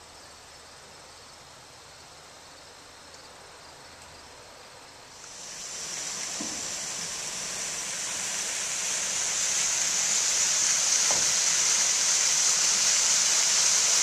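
Rushing, splashing water, faint at first. About five seconds in it comes in and builds to a steady, loud hiss.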